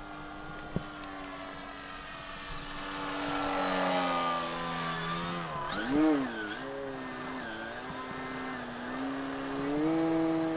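Electric motor and propeller of an FMS PA-18 Super Cub RC plane whining in flight overhead, its pitch dipping and rising several times around the middle and stepping up near the end. A single sharp click comes about a second in.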